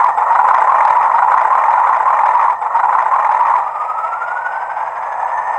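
English Electric Class 40 diesel locomotive sound from a Hornby TTS sound decoder: a steady hissing engine noise. About two-thirds of the way in it eases slightly and a whistle rising in pitch comes in.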